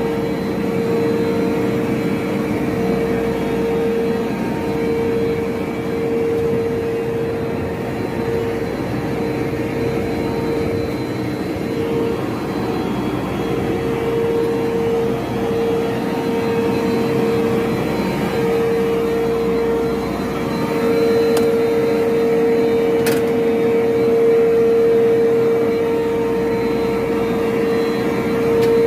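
A motor-driven machine running steadily, with a constant hum over a noisy hiss. There are a couple of sharp clicks about three-quarters of the way in.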